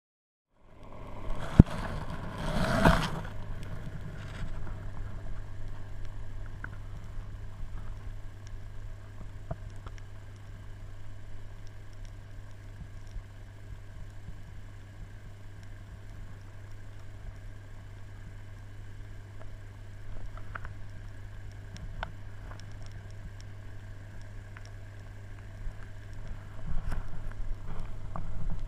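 A steady low mechanical hum, with two loud knocks in the first few seconds.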